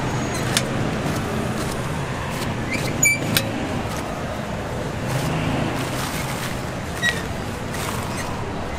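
Steady background noise of a busy outdoor market with vehicle engines running, broken by a few short metallic clicks and clinks, two close together about three seconds in.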